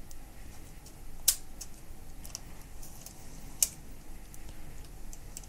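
Rolleiflex 3.5 twin-lens reflex camera's winding crank and shutter mechanism: two sharp metallic clicks a little over two seconds apart, with a few faint ticks from the camera being handled.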